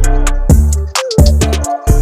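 Background music with a heavy bass and a steady drum beat.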